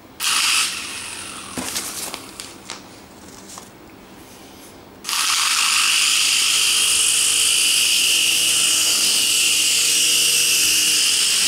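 Coaxial mini RC helicopter's small electric motors and rotors: a short whir just after the start and a few clicks, then about five seconds in the motors spin up suddenly to a steady high whir as it lifts off and flies.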